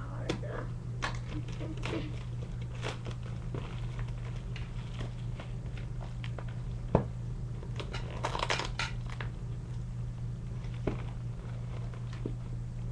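Paper and cardboard parcel wrapping being handled and unwrapped: scattered crinkling and rustling with small clicks, a sharp knock about seven seconds in, and a burst of crinkling just after it. A steady low hum runs underneath.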